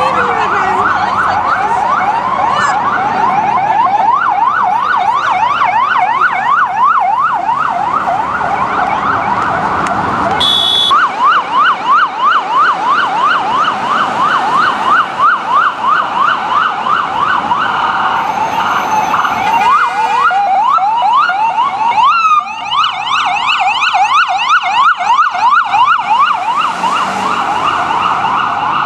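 Ambulance electronic siren in a fast yelp, its pitch sweeping up and down about three to four times a second, briefly breaking off and starting again a couple of times.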